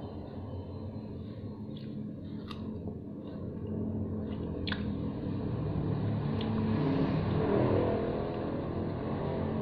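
Biting into and chewing a fresh strawberry, with a few sharp wet mouth clicks; the juicy chewing grows louder in the second half.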